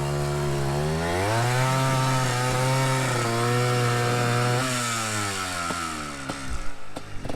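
Yamaha Blaster's single-cylinder two-stroke engine revving hard. Its pitch climbs about a second in, is held high for several seconds, then drops off after about five seconds, with a few sharp knocks near the end.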